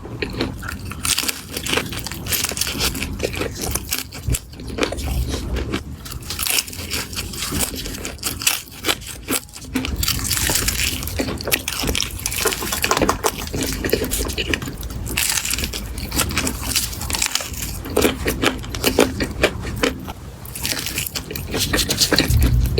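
Eating sounds: a person biting and chewing food with crunching and crackling, in a dense, irregular run of sharp clicks.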